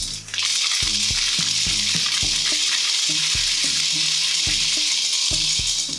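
Dried beans pouring steadily from a bag through a plastic funnel into a plastic soda bottle, making a continuous dense hiss of many small beans streaming down.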